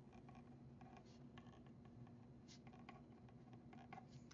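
Faint scratching of a pen writing on paper, a few short strokes at a time, over a low steady hum.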